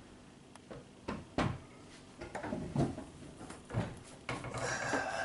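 Kitchen clatter: a handful of separate knocks and thuds of things being handled, with a brief rustle near the end.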